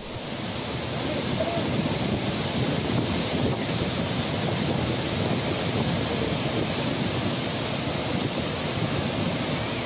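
Heavy flood discharge pouring through the open spillway gates of Srisailam Dam and crashing into the spray below: a steady rushing of water that swells in over the first second.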